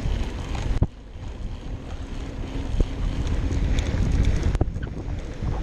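Wind buffeting the microphone over a low rumble as an electric mountain bike rolls fast downhill over grass, with a few sharp knocks from the bike on the bumpy ground.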